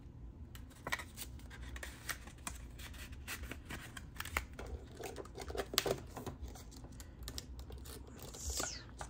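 Paper money and paper envelopes being handled: crisp rustling, sliding and light taps of bills as cash is put into a budget envelope.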